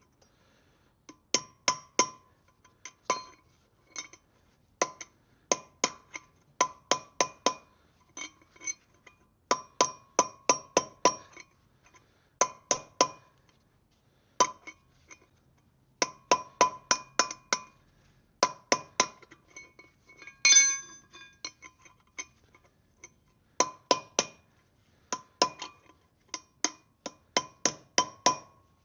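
Hammer blows on an old bearing race laid over a new one, driving the new bearing race into a Land Rover Defender 90 wheel hub: sharp, ringing metal-on-metal strikes in quick runs of three to six with short pauses between. One harder blow about twenty seconds in rings on longer.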